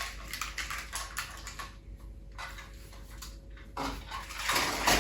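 Hands handling a string of star-shaped fairy lights and its packaging: a run of light clicks, rattles and rustles, busiest in the last second.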